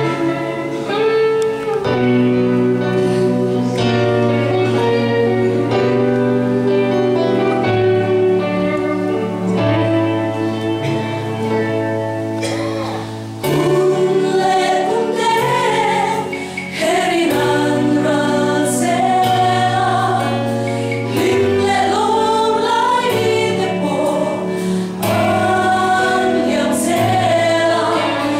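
Mixed choir of women's and men's voices singing a gospel song in parts over instrumental accompaniment. Held accompaniment chords open, and the voices grow strong about halfway through.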